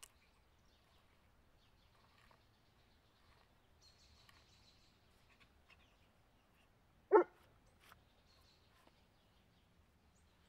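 A single short, loud dog bark about seven seconds in, with faint bird chirps in the background.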